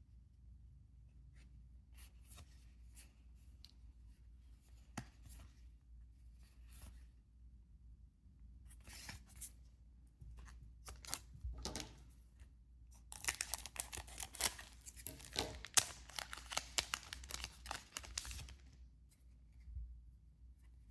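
Trading cards sliding and flicking against each other in short rustles, then, about thirteen seconds in, a foil booster pack being torn open with several seconds of crinkling tearing.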